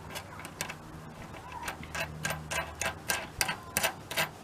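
Small metal clicks and taps from the parts of a VW bus gas-door lock being handled and fitted, irregular and coming faster and louder in the second half.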